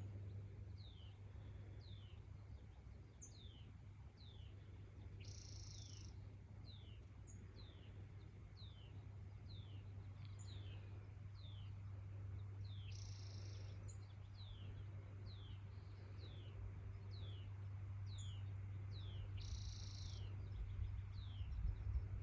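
A bird calling over and over with short falling chirps, about one a second, with a short buzzy note three times, several seconds apart, over a steady low hum.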